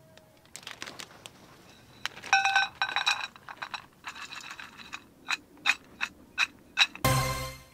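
Mixed nuts tumbling into a small stainless steel cup, clattering and clinking as the cup rings. This is followed by a run of single sharp clicks as the nuts knock against the steel, and a louder clatter near the end.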